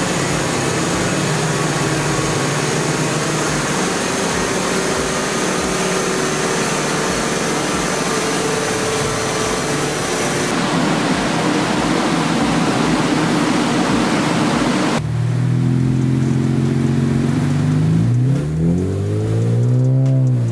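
Nissan Z's twin-turbo 3.0-litre V6 running on a chassis dyno under a heavy rush of noise. About fifteen seconds in the sound changes abruptly, and near the end the engine note rises and falls as it revs.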